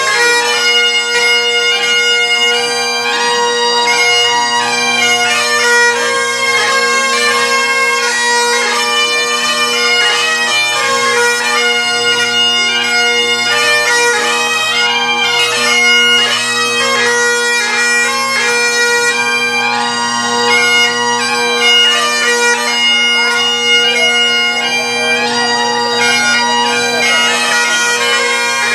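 Bagpipes playing a Scottish tune: a quick ornamented chanter melody over steady, unbroken drones.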